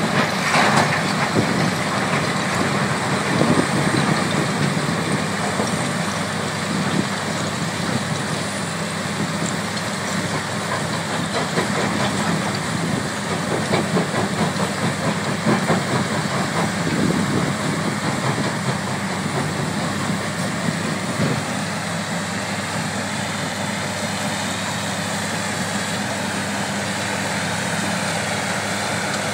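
Extec C10 mobile jaw crusher running and crushing concrete rubble: a steady heavy machine drone with irregular clattering and knocking of rubble through the jaw and onto the conveyor. A wheel loader runs alongside. The knocking thins out about two-thirds of the way through, leaving a steadier drone.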